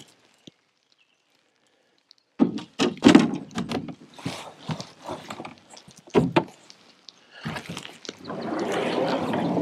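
Hollow knocks and thumps on the plastic hull of a Pelican Catch 120 fishing kayak as it is boarded and the gear and paddle are handled, starting about two seconds in. From about eight seconds a steady scraping rush follows as the hull is pushed off the shore.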